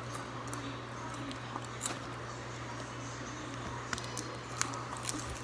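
Faint rustling and a few light clicks as candy packaging is handled, over a steady low hum.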